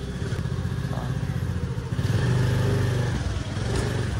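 Motorbike engine running, growing louder about two seconds in for around a second.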